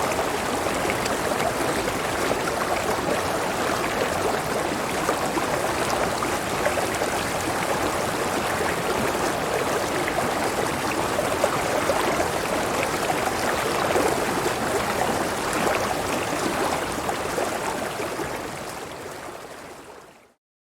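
Steady flowing water, an even rushing and trickling, fading out over the last few seconds.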